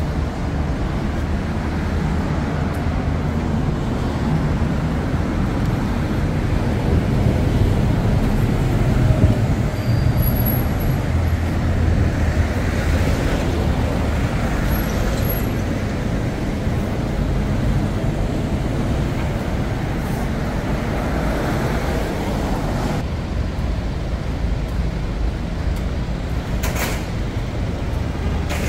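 Road traffic on a busy city street: engines and tyres of passing cars, trucks and buses in a continuous low rumble that swells in the middle. A brief hiss near the end.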